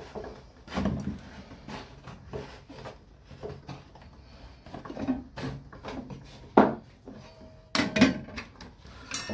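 Wooden pieces handled and set down on a wooden workbench: about ten irregular clunks and clicks of wood on wood, the loudest a bit past halfway and near the end.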